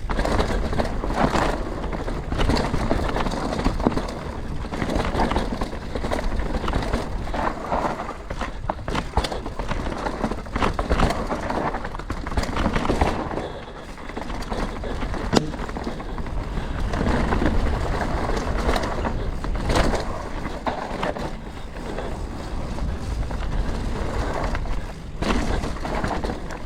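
Canyon Spectral 125 CF7 mountain bike descending a rough trail: tyres running over rock and dirt, with frequent sharp knocks from impacts over a steady low rumble.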